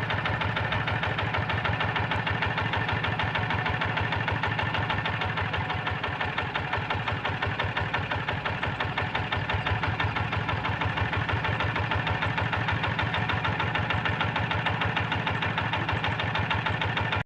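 Single-cylinder diesel engine of a paddy-field hand tractor running steadily with a rapid, even beat.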